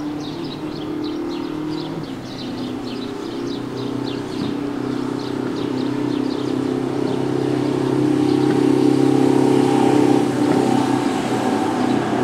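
A motor vehicle's engine running steadily with a constant pitch, growing louder toward the end. Small birds chirp rapidly and repeatedly during the first few seconds.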